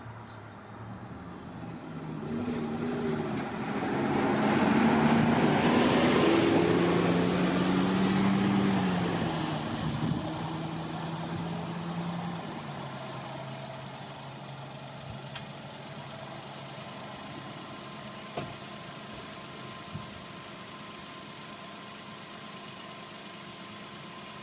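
A motor vehicle's engine draws near and grows loud. Its pitch falls as it slows, and from about twelve seconds in it settles into a steady idle with a faint whine.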